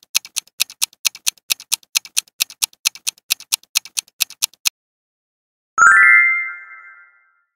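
Countdown-timer clock ticking, about four ticks a second, stopping near five seconds in. Just before six seconds a bright chime with a quick rising sparkle rings out and fades over about a second and a half, the reveal sound marking the answer.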